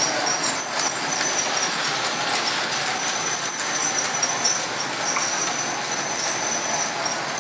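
Large-scale model train, a small 0-4-0 locomotive hauling nine cars at about a third of full power around a tight circle of track: steady rumble of wheels rolling on the rails, with a thin high squeal and scattered clicks.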